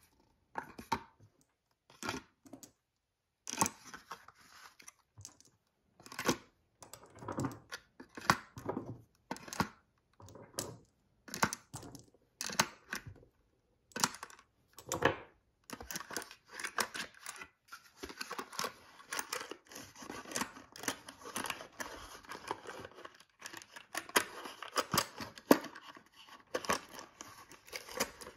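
Cardboard ammunition box and its cardboard cartridge tray being handled while .223 Remington cartridges are pushed one by one into the tray: repeated short scrapes and rustles of cardboard with light clicks. In the second half the rustling becomes denser and nearly continuous.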